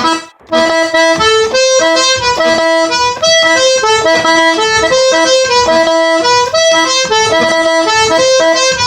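Diatonic button accordion tuned in G/C playing a quick merengue melody in short, changing notes, after a brief break just after the start.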